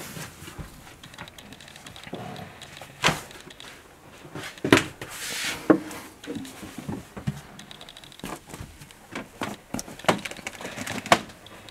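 Scattered knocks, bumps and rustles of a person clambering through a small boat cabin over a bunk with a hand-held camera. A few sharp knocks stand out, about three seconds in, twice around five seconds and near the end, with a rustling swell around five seconds.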